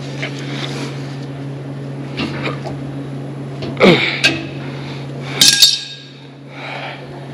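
A steel wrench knocking and clinking against metal fittings, a couple of sharp knocks and then one ringing clink about halfway through, over a steady low hum.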